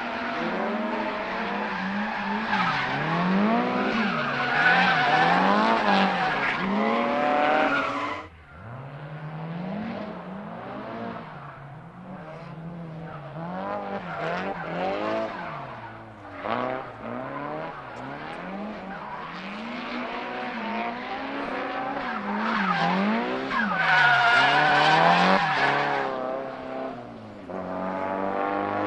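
Nissan Silvia S15's tuned SR20DET turbocharged four-cylinder engine revving up and down over and over as the car is drifted, with tyres sliding on wet tarmac. About eight seconds in, the sound breaks off sharply and drops in level, then builds again to its loudest about three-quarters of the way through.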